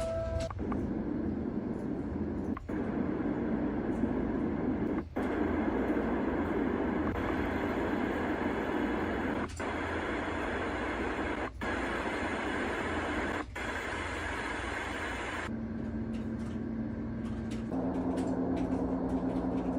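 White-noise machine playing one ambient noise track after another: a steady rushing noise that changes character every few seconds, each switch marked by a brief dropout. Near the end, a steady low hum joins the noise.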